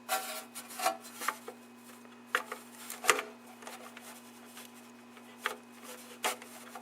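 Scattered clicks and short scrapes of a 12AU7 vacuum tube being worked in its socket, its glass and pins rubbing and clicking; the loudest click comes about three seconds in. The socket feels loose or worn.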